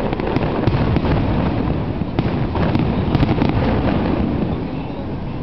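Aerial fireworks shells bursting overhead: a dense, continuous low rumble of explosions with many sharp cracks, easing slightly near the end.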